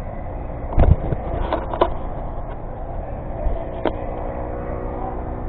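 Steady low hum of a large indoor soccer hall, with a few short knocks and rubs on the microphone as fabric brushes over it. The loudest knock is a dull thump about a second in, and lighter knocks follow twice shortly after and once near four seconds.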